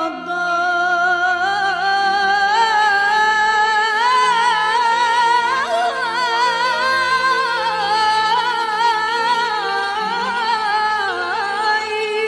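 A woman singing a long, wordless ornamented melisma, her high voice wavering and bending in pitch, over a steady held instrumental accompaniment.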